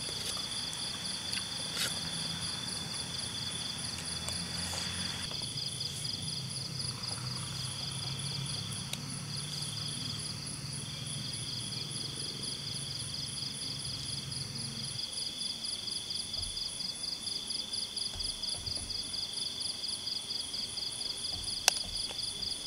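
A chorus of night insects trilling steadily, a high, rapid pulsing that never lets up. Under it a low hum runs until about two-thirds of the way through, and there is one sharp click near the end.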